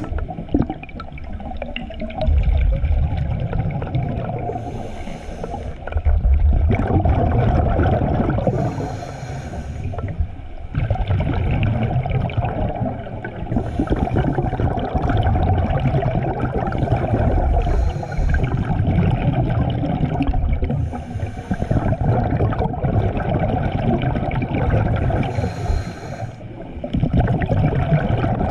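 Scuba diver breathing through a Cressi regulator, heard underwater: a short hiss on each inhale about every four seconds, and a low rumble of exhaust bubbles between them.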